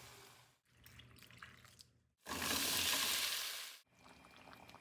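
Kitchen cooking sounds cut together in short clips: light clinks and small knocks, with a loud steady hiss lasting about a second and a half in the middle.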